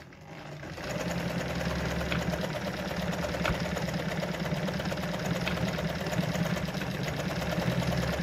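Brother Pacesetter ZZ2-B702F sewing machine running a long straight stitch (stitch length 4) through denim. It speeds up over the first second, runs steadily with a few sharp ticks, and stops near the end.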